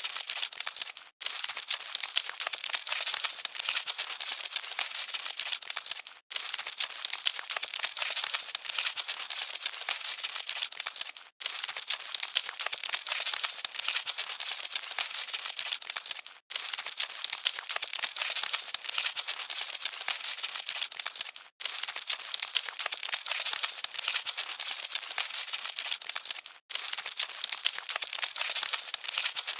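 Cockroaches scuttling: a dense, fine, dry crackling rustle with no low end. It is a loop that stops for a moment about every five seconds and then starts again.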